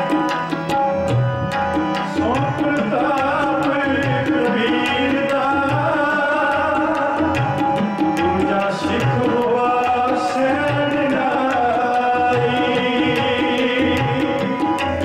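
Sikh kirtan: a man singing a devotional hymn over a steady harmonium drone, with tabla keeping an even rhythm. The voice comes in about two seconds in.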